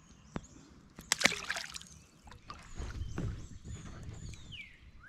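A bass is dropped back into the water from a kayak, giving a sharp splash about a second in, with softer water sloshing and knocks against the kayak around it. Near the end a bird gives a descending call.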